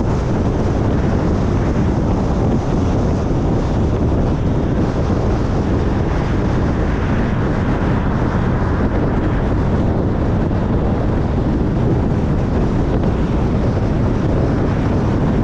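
Steady, loud rush of wind and road noise from a car driving at highway speed, the wind buffeting the microphone.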